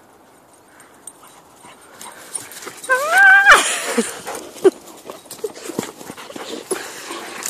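A dog gives one high whine or yelp about three seconds in, its pitch rising then dropping away. Rough handling noise follows, with scattered knocks and a few short, softer whimpers.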